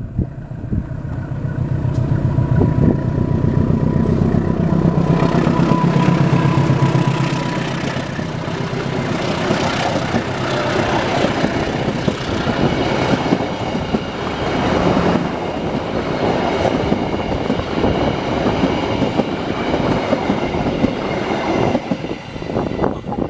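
A diesel-electric KAI locomotive passes close, its engine throbbing loud and deep for the first several seconds. Then the passenger coaches roll by with a steady clatter of wheels on the rails.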